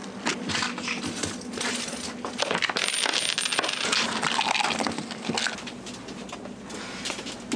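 Plumbing pipes straining after a toilet flush: a dense, irregular clatter of metallic rattles and knocks. It eases after about five seconds.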